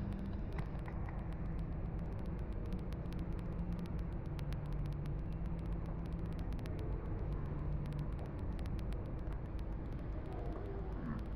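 Steady low rumble of shopping-mall background noise, with a faint hum underneath.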